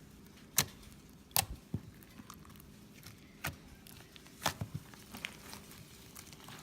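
A few scattered sharp clicks and taps, about six of them at uneven intervals, over quiet room tone.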